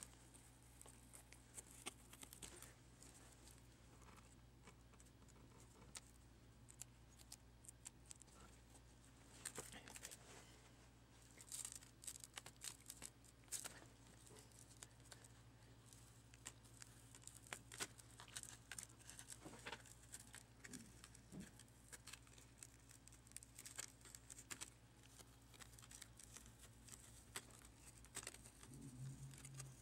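Rubber adhesive tape being peeled and torn away from the edge of a cracked laptop touchscreen digitizer: a faint, irregular run of scratchy crackles and ticks over a low steady hum.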